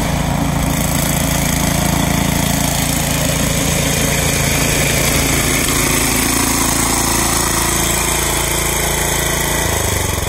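Toro 1332 PowerShift snowblower's engine running steadily, its note changing near the end.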